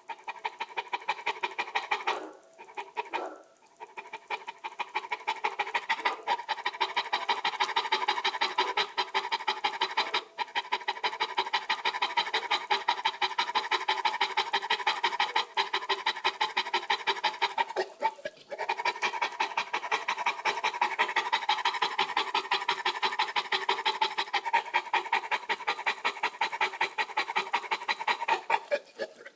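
Dogue de Bordeaux heavy breathing: quick, rhythmic panting that breaks off briefly a few times, around two, ten and eighteen seconds in.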